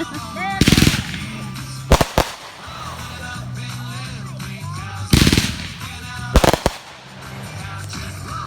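Consumer fireworks going off over background music: a short crackling volley, two sharp bangs in quick succession, then another crackling volley and a double bang a few seconds later.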